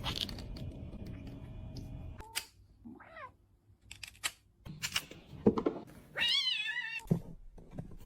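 Domestic cat meowing: a short falling meow about three seconds in, then a longer, wavering meow near the end, with a few knocks between them.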